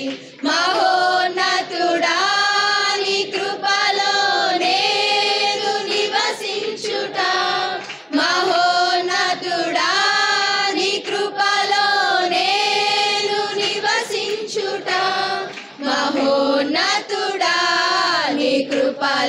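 Choir of girls and young women singing a Telugu Christian song, with the sung lines broken by short breaths.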